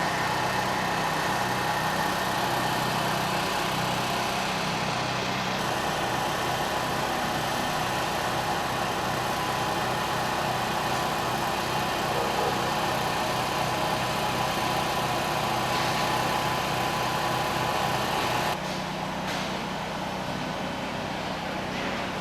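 Construction site noise, mainly an engine of heavy machinery running steadily with a constant hum. Near the end it drops abruptly to a quieter, similar engine noise.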